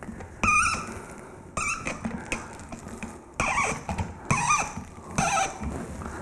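Hand-crank sausage stuffer being cranked, giving several short squeaks and squelches as the pork sausage mixture is forced through the nozzle into the casing.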